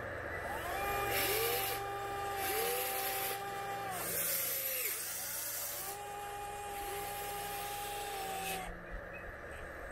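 Electric motors of a 1/14-scale Volvo EC160E RC excavator whining as the boom and bucket move. The whine comes in two long runs of a few seconds each, rising in pitch as each starts and dropping as it stops, with bursts of hiss alongside.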